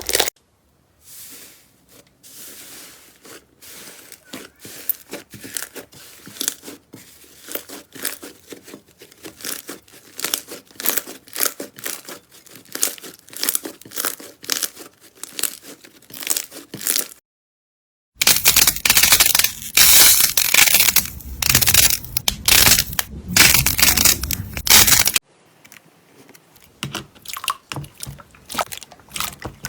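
Slime being squeezed, poked and stretched by hand, making streams of sticky clicks and crackles. The sound stops for about a second past the middle, then comes back much louder and denser for several seconds before turning quieter again.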